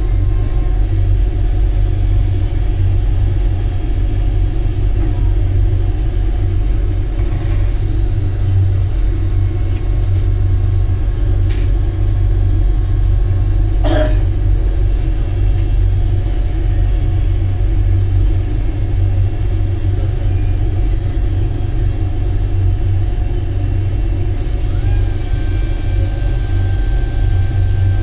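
Steady low rumble and hum of running machinery or traffic, with a single sharp click about halfway through and a faint high whine coming in near the end.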